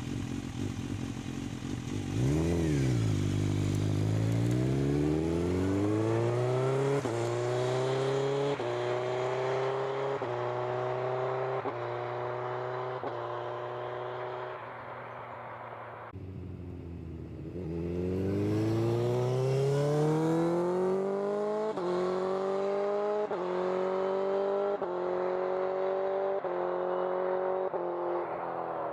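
Suzuki GSX-R 1000 inline-four accelerating hard up through the gears with quickshifter clutchless upshifts: each gear's rising engine note is cut off sharply at the shift and picks up again at once. There are two such runs, with the engine easing off in between, about halfway through.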